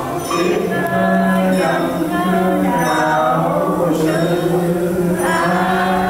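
Slow vocal music with long held notes, like a sung prayer or hymn.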